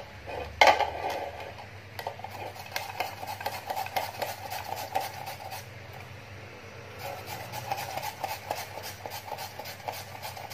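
Jicama being grated by hand on a plastic grater over a plastic bowl: steady rasping strokes, about three a second. One sharp knock near the start is the loudest sound.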